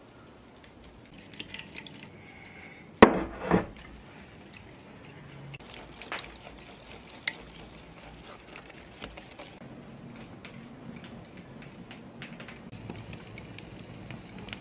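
Hand food-preparation sounds: a short loud splash of liquid about three seconds in, then scattered soft clicks and taps as a straw whisk beats eggs in a ceramic bowl. Near the end, hands work moist cornmeal dough in a wooden trough.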